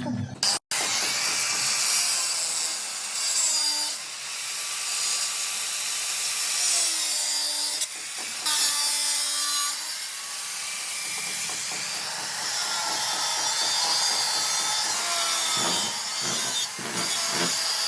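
A power tool cutting steadily, with a hissing grind whose motor pitch dips and rises as it bites.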